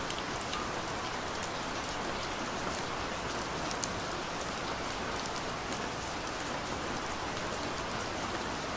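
Steady rain, a constant hiss with many individual drops ticking sharply on top of it.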